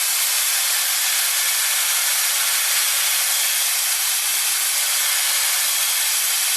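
Hand-held electric drill running steadily at full speed, its bit cutting through clamped blocks along pilot holes.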